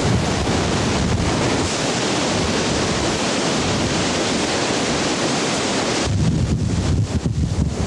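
Steady rush of a big whitewater rapid. From about six seconds in, wind buffets the microphone.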